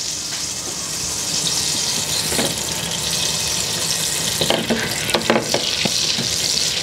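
Butter and oil sizzling in a stainless steel saucepan as the butter melts, a steady hiss with a few light clicks and knocks around the middle and near the end as the pan is moved about on the induction hob.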